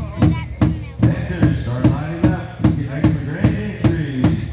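Powwow drum and singers: a large drum struck in unison at a steady beat of about two and a half strokes a second, under a group of voices singing a melody.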